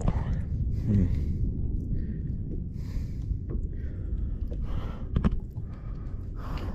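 Wind buffeting the microphone as a steady low rumble, with a person's heavy breaths roughly every two seconds and a single knock about five seconds in.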